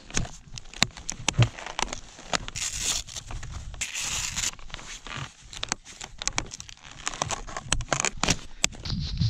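Touring skis and ski boots crunching and scraping on crusty snow, with many irregular sharp clicks and two brief hissing scrapes about two and a half and four seconds in.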